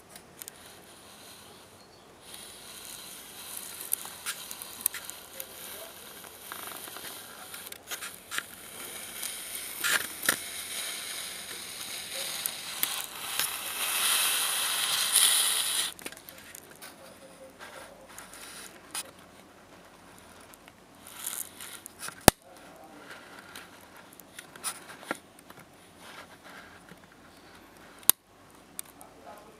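Rustling and scraping handling noise, loudest as a hissing rush about 12 to 16 seconds in, with scattered crackles and a few sharp clicks later on.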